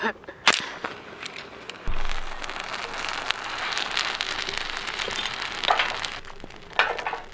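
A waterproof storm match burning with a sudden, steady hiss and crackle, flaring up about two seconds in, sputtering for about four seconds, then dying down. A couple of light knocks near the end.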